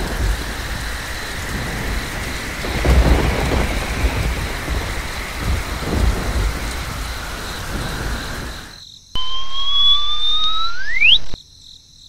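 Rain and thunderstorm sound effect: steady rain with low rolls of thunder, swelling about three seconds in and fading out around nine seconds. Then a whistle-like tone rises slowly for about two seconds and ends in a quick upward sweep.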